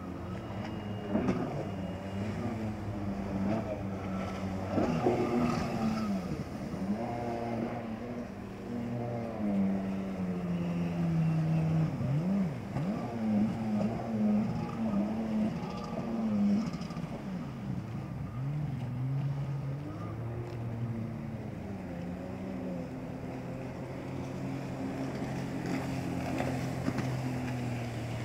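Jet ski engines running hard as two or three personal watercraft ride past, their pitch repeatedly rising and falling as they pass and change throttle. Several engines overlap at once.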